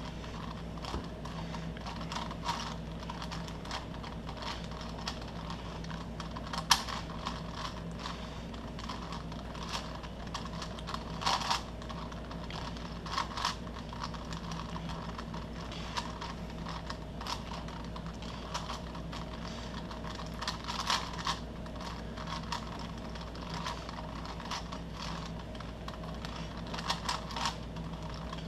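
Plastic Rubik's-type puzzle cube being turned by hand, with rapid irregular clicking and clacking of its layers as it is solved, over a steady low hum.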